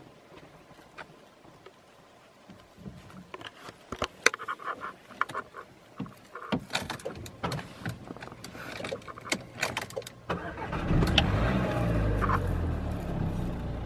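A string of sharp clicks and rattles inside a car, then about ten seconds in the car's engine starts and keeps running.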